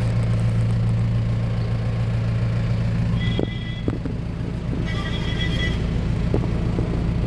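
Mahindra Bolero Maxx Pik-Up's diesel engine idling steadily, heard from inside the cab. A short electronic beep sounds about three seconds in and again, longer, about five seconds in, with a few light clicks.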